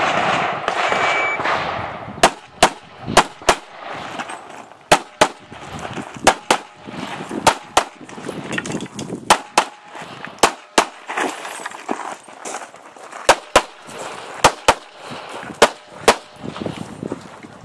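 Springfield XDm 5.25 9mm pistol firing about twenty shots, mostly in quick pairs, with short pauses between strings. A brief high beep sounds about a second in, before the first shot.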